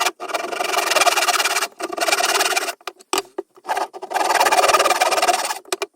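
A Swiss Army knife cutting into pinewood, shaping a piece to fit drilled holes. It makes three long scraping strokes with shorter ones between, the longest near the end.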